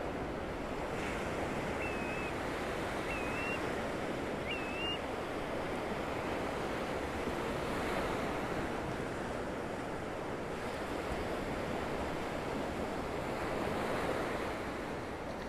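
Gentle Gulf of Mexico surf washing onto the beach in a steady, continuous wash. A bird gives three short high chirps a couple of seconds in.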